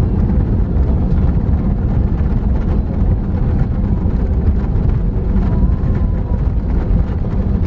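Loud, steady rumble inside the cabin of an Airbus A320 during its landing roll, heard as the jet rolls down the runway with its ground spoilers raised just after touchdown.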